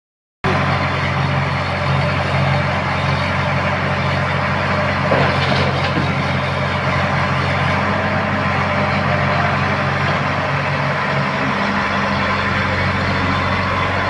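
JCB backhoe loader's diesel engine running steadily while it works, with a single knock about five seconds in.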